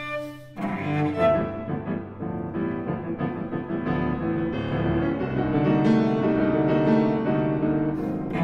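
Cello and grand piano playing classical music together. A held cello note dies away just after the start, and about half a second in both instruments come back in with a run of changing notes.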